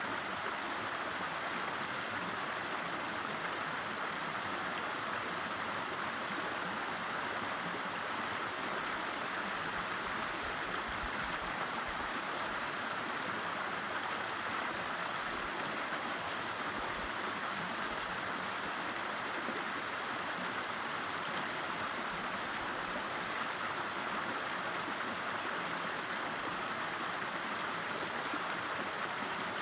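A river's water rushing and babbling steadily, an even, unbroken noise.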